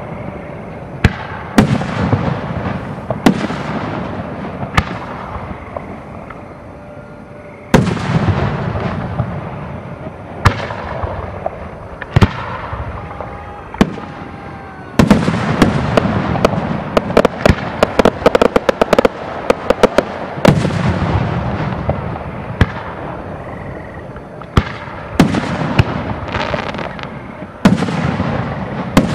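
Aerial fireworks shells launching and bursting overhead, each sharp boom followed by a long echoing rumble. About halfway through, a quick volley of many reports comes in close succession for several seconds before single bursts resume.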